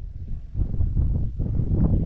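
Wind buffeting the microphone, a gusty low rumble that rises and falls.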